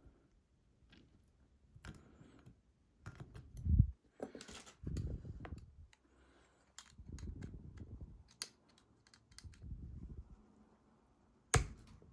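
Lock picks working the sliders of an ASSA Desmo slider lock: scattered small metal clicks and scrapes with duller handling bumps, the loudest bump about four seconds in.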